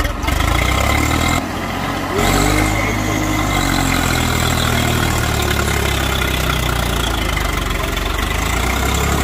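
Swaraj 744 FE tractor's three-cylinder diesel engine running hard under load as the tractor tries to drive out of deep mud, its tyres spinning and churning the mud. The engine dips briefly, then the revs come up about two seconds in and stay high.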